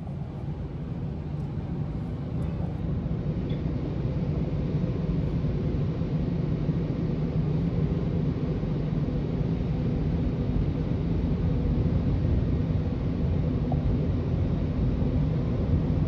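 Automatic tunnel car wash heard from inside the car: a steady low rumble of machinery and water spraying on the bodywork, growing gradually louder.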